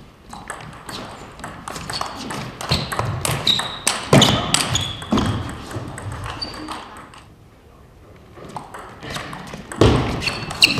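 Table tennis rally: the ball clicking off the paddles and bouncing on the table in quick succession, echoing in a large hall. The clicks stop for about a second and a half between points around two-thirds of the way through, then the next rally starts.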